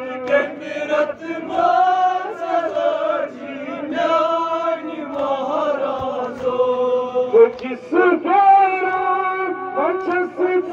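Male voice chanting a noha, a Shia mourning lament, into a microphone, in long phrases whose melody glides up and down with short breaks between them.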